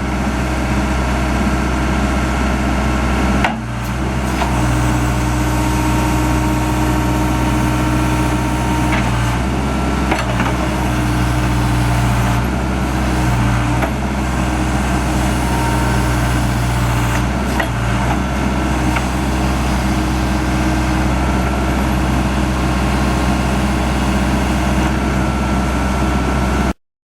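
Case 580 Super E backhoe loader's engine running steadily, with a low tone that comes and goes every few seconds. It stops suddenly near the end.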